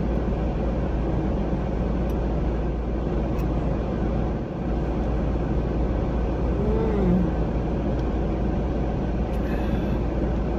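Steady low rumble and hiss inside a car cabin, typical of the car idling.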